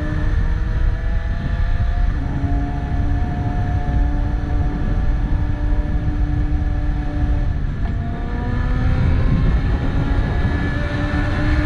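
BMW S1000RR inline-four engine running under way, its note climbing slowly, breaking off about a second in and again near eight seconds, then climbing again, over a heavy low rumble.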